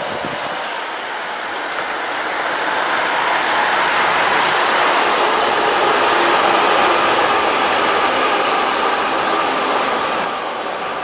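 Diesel multiple-unit passenger train passing close by, its engines and running gear growing louder to a peak around the middle and fading away near the end.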